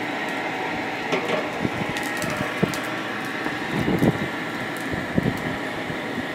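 Small pot forge fire burning hard, with a steady rushing noise and scattered crackles and pops; a few louder, duller crackles come around the middle.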